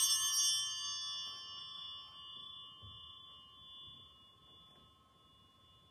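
A small altar bell rung once, its clear high ring fading slowly over several seconds. It marks the elevation of the cup at the words of institution in the Eucharist.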